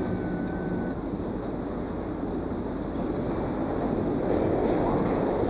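Freight train on rails, a steady low rolling rumble that grows louder about four seconds in, with a thin high squeal in the first second.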